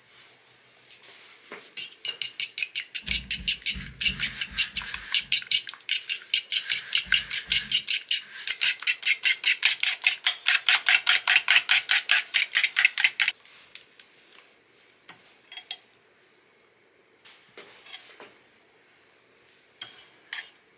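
Eggs being whisked in a bowl with a metal utensil: rapid, regular clinking about five times a second that stops abruptly about thirteen seconds in, with a few low knocks around three and seven seconds in and a few scattered clinks near the end.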